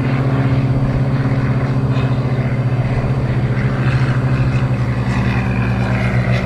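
Cessna 182's six-cylinder piston engine and propeller droning steadily at climb power just after takeoff, with a fast, even pulse.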